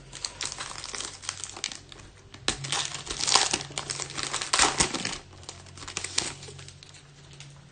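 Foil trading-card pack wrappers being torn open and crinkled by hand, a run of crackly rustling that is loudest in the middle and dies away near the end.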